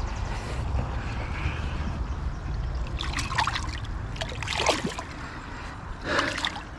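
A knife being rinsed by hand in shallow river water: water splashing and sloshing in several short bursts from about three seconds in.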